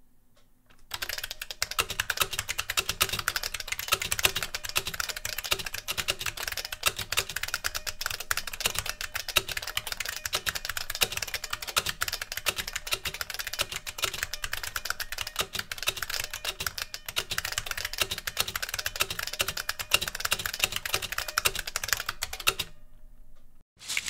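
Fast, continuous typing on a Model F77 reproduction keyboard with capacitive buckling-spring switches: a dense stream of key clicks that starts about a second in and stops shortly before the end.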